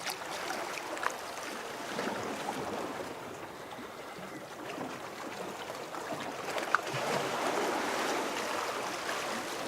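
Sea waves washing against rocks: a steady wash that swells a little about two seconds in and again near the end, with a couple of small clicks.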